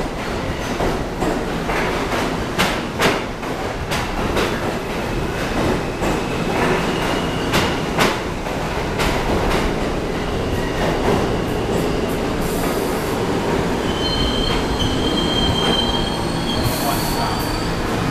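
New York City subway train rolling slowly through the station and braking to a stop: a steady rumble with the wheels clicking over rail joints, then a high squeal a little before the end as it comes to a halt.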